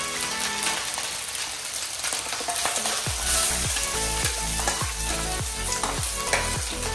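Rice and scrambled egg sizzling in a hot stainless steel wok. From about three seconds in, a metal spatula scrapes and stirs against the pan in quick repeated strokes, about three a second.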